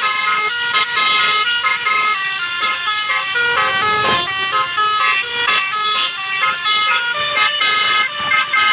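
Basuri telolet multi-tone air horn with roof-mounted trumpets playing a fast, loud melody. Several notes sound at once and step quickly from one pitch to the next without a break.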